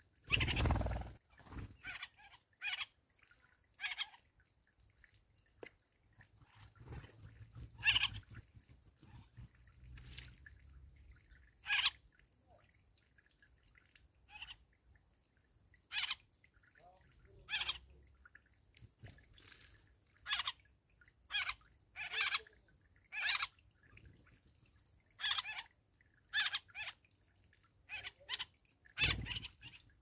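Birds chirping: short single chirps, about twenty of them, at uneven intervals. A brief, louder, fuller noise comes right at the start and another near the end.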